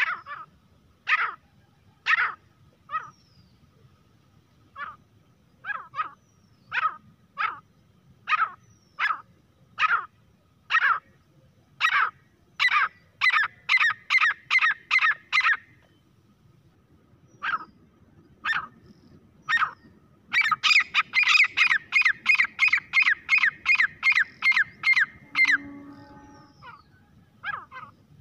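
Grey francolin calling: loud, sharp notes about once a second that quicken into fast runs, first briefly around the middle and then a longer rapid series from about two-thirds of the way in until shortly before the end.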